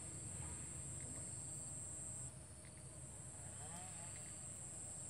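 Insects trilling steadily at a high pitch, the trill dropping to a fainter level a little over two seconds in.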